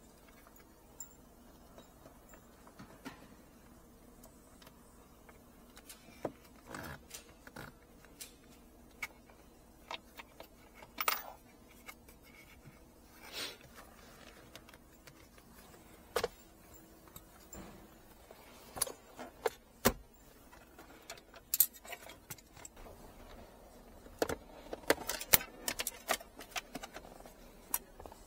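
Scattered clicks, taps and light clattering of plastic interior trim and metal hand tools being handled and pried at, irregular and thickest in the second half.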